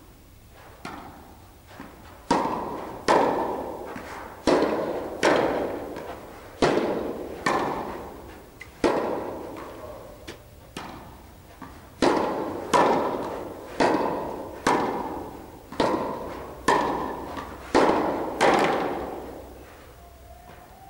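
Tennis ball struck back and forth by rackets in a quick volley drill, a sharp hit about every three quarters of a second, each one echoing in a large indoor tennis hall.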